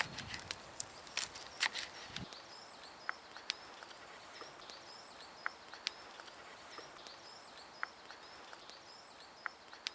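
Knife cutting spring onion on a bamboo chopping board: a run of quick sharp taps for about the first two seconds, then only an occasional single tap. Faint small chirps repeat in the background.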